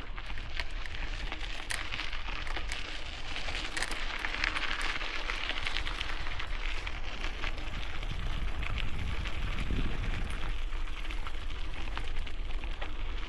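Bicycle tyres rolling over gravel: a steady crunching crackle full of small clicks, over a low rumble of wind on the microphone.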